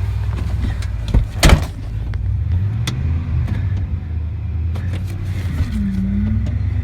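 Ford F-150 truck engine cranking over after stalling on the road, then catching about two and a half seconds in and running. Two sharp loud knocks come at about a second and a half in. It runs rough on low voltage, with no charging system hooked up.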